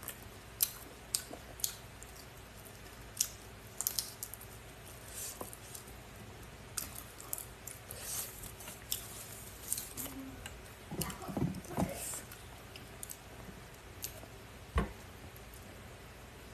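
Close-miked eating sounds: scattered small clicks and ticks of chopsticks on food and dishes, with chewing and wet squishing of food. A louder, fuller stretch comes about two-thirds through, and a single thump near the end.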